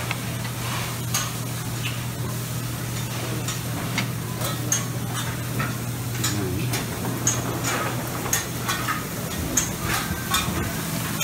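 Busy buffet restaurant noise: a steady low hum and a hiss like food frying, with frequent short clinks of dishes and utensils.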